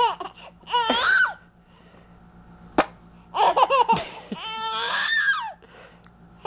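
Four-month-old baby laughing in four high-pitched bursts with short pauses between them. A single sharp click comes about three seconds in.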